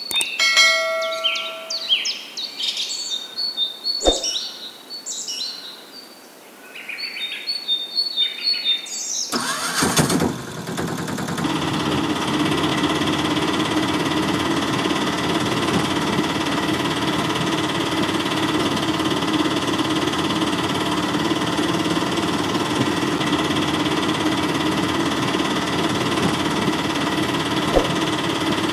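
Birds chirping, with a single click about four seconds in. About a third of the way through, the toy's small battery-powered DC motor switches on and runs with a steady buzzing whine as it drives the matchbox rickshaw along.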